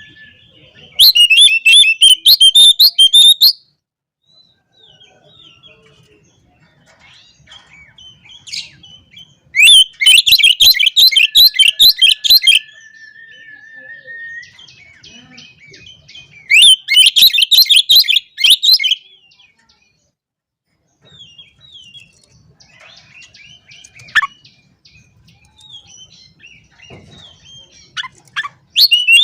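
Oriental magpie-robin (kacer) singing: three loud bursts of fast, chattering high-pitched song, with softer scattered whistles and one long level whistled note between them.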